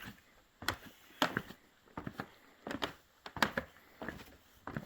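Footsteps going down stairs: a series of separate footfalls, about one every half second to second.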